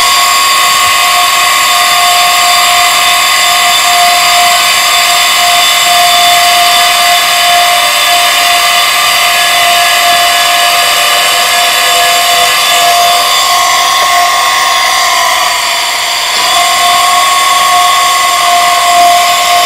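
Small electric water pump motor running with a steady high whine while it is primed by hand, water being poured into its priming port because its suction hose drained through a leaky foot valve. The whine starts abruptly, sags briefly about 15 seconds in, then comes back up to pitch.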